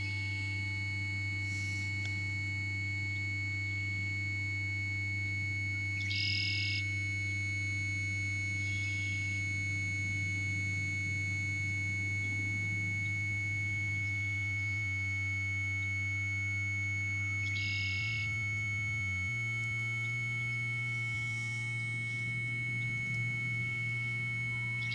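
Battery-powered electronic drone improvisation: a sustained low sine-like drone that shifts to new pitches a few times in the second half, under a constant high steady tone. Short high chirps come every few seconds.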